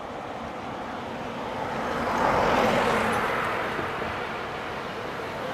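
A road vehicle passes: engine and tyre noise swells to its loudest about two and a half seconds in, then fades.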